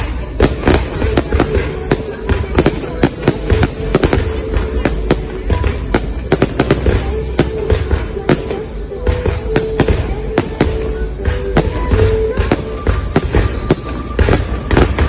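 Fireworks display: a dense, irregular barrage of sharp bangs and crackles over a deep rumble of booms, several reports a second. Music with held notes plays underneath.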